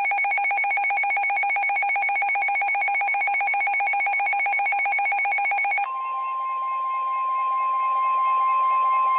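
NOAA Weather Radio alert signal: a rapid, buzzing warble of electronic data tones, the coded SAME alert header, which cuts off abruptly about six seconds in. It is followed by the steady, high-pitched 1050 Hz warning alarm tone.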